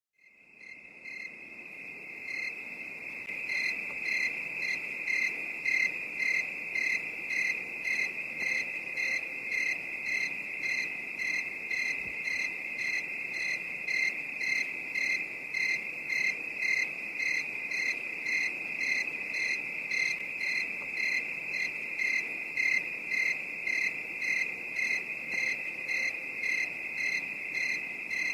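Night ambience of crickets: one steady high trill with rhythmic chirping over it, about two chirps a second, fading in over the first few seconds.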